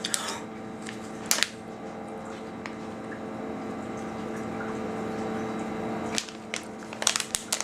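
A steady low hum with a few light clicks over it, and a quick run of small clicks and ticks near the end.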